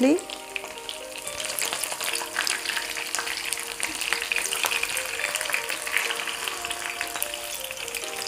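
Chicken legs shallow-frying in sunflower oil, sizzling steadily, with light clicks and scrapes of tongs as the pieces are turned in the nonstick pan. Quiet background music plays underneath.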